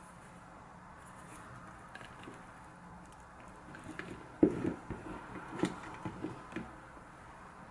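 Handling noises as a brown leather shoulder bag and its strap are gathered up and slung onto a shoulder: scattered light knocks and rustles, the loudest a thump a little past halfway through.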